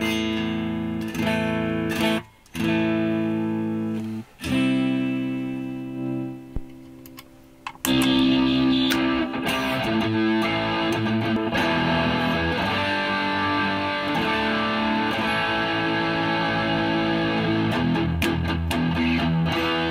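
Electric guitar played through an AMT D2 Legend Amps preamp pedal on its clean channel, working properly after repair. For the first eight seconds or so, single chords ring out with short gaps between them. After that the playing turns into a denser, fuller passage that runs without a break.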